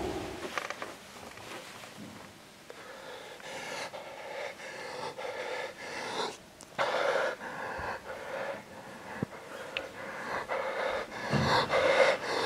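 A man breathing heavily, a string of loud breaths in and out that grow louder near the end.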